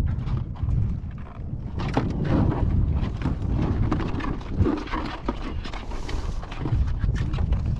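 Wind buffeting the microphone in a steady low rumble, with frequent light knocks and rattles throughout.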